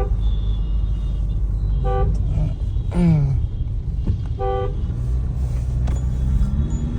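Vehicle horns honking in traffic: short honks at the start, about two seconds in and about four and a half seconds in, and around three seconds in a horn whose pitch slides down. A steady low rumble of engine and road noise from the moving vehicle runs underneath.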